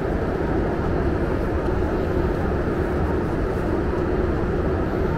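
Steady cabin noise inside a Boeing 747-8 airliner: an even, low rushing sound with no breaks or changes.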